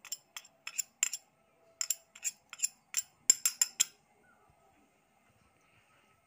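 A spoon clicking and tapping against a jar while salt and turmeric powder are spooned out, about three sharp light clicks a second, unevenly spaced. The clicks stop about four seconds in.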